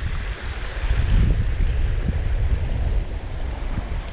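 Strong wind buffeting the microphone in uneven gusts, over the steady wash of small waves breaking across a shallow rocky reef.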